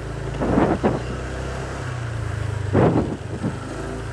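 Motorcycle engine running steadily at low speed while riding slowly. There are two short bursts of noise, about half a second in and again near three seconds.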